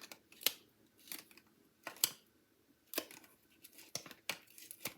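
Scattered sharp clicks and light taps, six or so, as paper pieces and small craft tools are handled on a work table.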